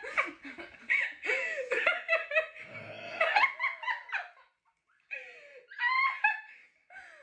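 People laughing in fits, with a short pause around four and a half seconds in before the laughter starts up again.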